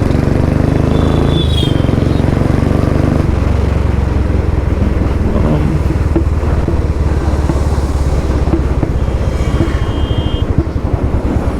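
Royal Enfield Bullet 350's single-cylinder engine running through a Long Punjab aftermarket exhaust. It pulls steadily at first, eases off and drops in pitch about three seconds in as the bike slows, then runs low and lumpy toward the end.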